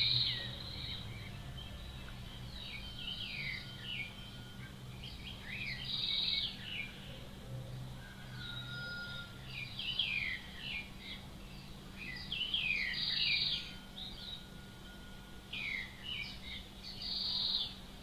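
Nightingale singing: phrase after phrase of rapid, mostly downward-sweeping notes and trills, with a few long level whistles and short pauses between phrases. A low steady hum runs underneath.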